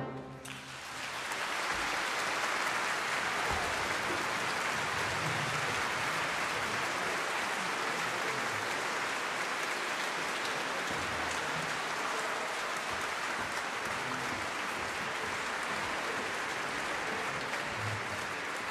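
Concert audience applauding, swelling in over the first second or two and then holding steady.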